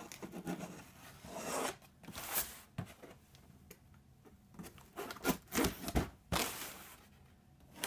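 Large serrated knife slicing through the packing tape and cardboard of a shipping box: a series of irregular scraping strokes, longest in the first two seconds, with a quicker run of short strokes near the end.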